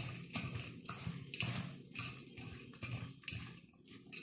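A hand mixing moistened poha (flattened rice flakes) in a stainless steel bowl: faint, irregular rustling of the flakes in quick short strokes, with light knocks against the bowl.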